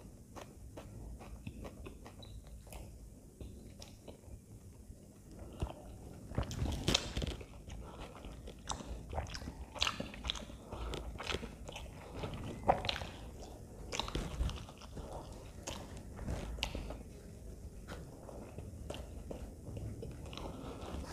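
Close-miked mouth sounds of chewing aloo paratha: a run of short wet clicks and smacks, busiest and loudest through the middle of the stretch.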